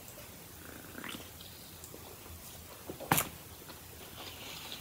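Quiet sips and swallows of soda drunk from an aluminium can, then the can set down on the table with a single sharp knock about three seconds in.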